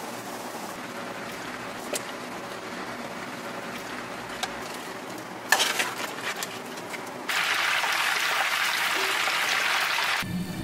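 Kitchen sounds of side dishes being tossed and mixed, with a few light clicks, and a sharp crack about five and a half seconds in. A loud, even sizzle of food deep-frying in a pan of hot oil starts after about seven seconds and cuts off suddenly near the end.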